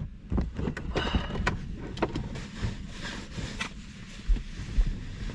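Strong gusty wind buffeting a parked car, heard from inside the cabin as an uneven low rumble that swells in gusts, with scattered small knocks and rustles.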